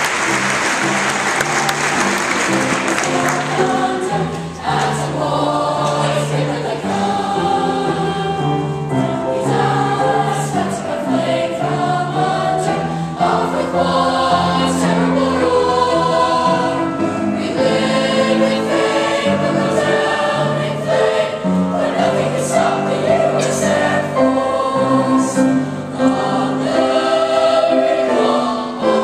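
Applause dies away over the first few seconds, then a middle-school choir sings.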